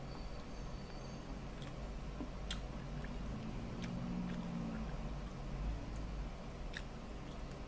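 Close-up chewing of tandoori chicken, with a few sharp clicks from the mouth as meat is pulled off the bone. A brief low hum comes about halfway through.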